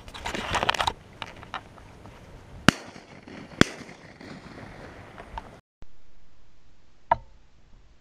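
Two sharp shotgun shots about a second apart, the loudest sounds here, after a second of scraping and knocking from fingers handling the camera. After a sudden cut, one more sharp shot comes near the end, with a short ring.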